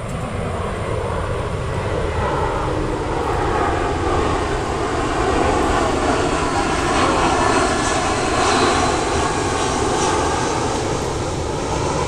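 A steady engine drone over a rough low rumble, swelling slowly to its loudest a little past the middle and easing near the end.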